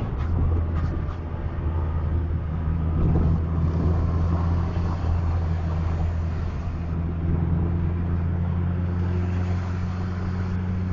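Bus engine running with a steady low drone, along with road noise.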